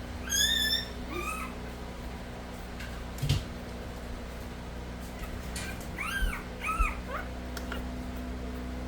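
Newborn Nova Scotia Duck Tolling Retriever puppy squealing while being handled: a long high squeal near the start, a shorter one just after, then two rising-and-falling squeals about six to seven seconds in. A single knock comes a little past three seconds in, over a steady low hum.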